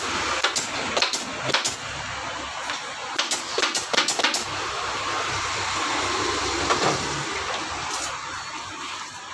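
Pneumatic staple gun firing into the sofa's wooden frame to fix black leatherette: about a dozen sharp shots, most of them in the first four and a half seconds and one more about eight seconds in, over steady background noise.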